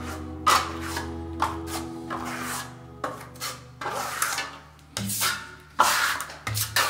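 Repeated rubbing strokes of an applicator across a wall as decorative paint is worked on, about one or two strokes a second, over quiet background music.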